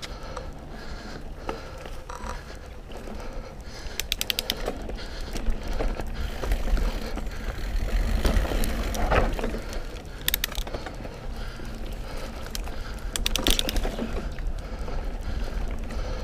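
Mountain bike ridden along a dirt singletrack: tyres on the trail over a steady low rumble of wind on the microphone, with bumps and knocks from the bike. Short bursts of rapid clicking come about four seconds in, again after ten seconds and near thirteen seconds.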